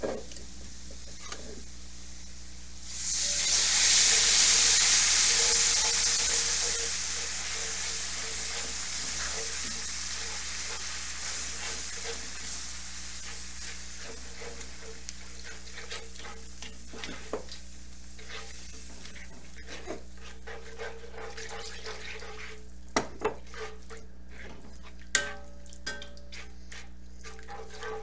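Home-canned chicken stock poured into a hot cast-iron skillet of caramelized onions and flour roux, hitting the pan with a loud sizzle about three seconds in that slowly dies away. Metal tongs stir and click against the pan afterwards, with a few sharp clacks near the end.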